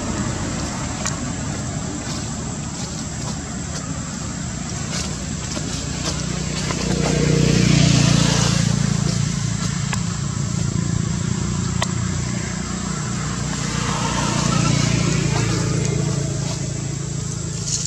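Motor vehicle engine drone, swelling twice as if vehicles pass by, over a steady thin high-pitched whine.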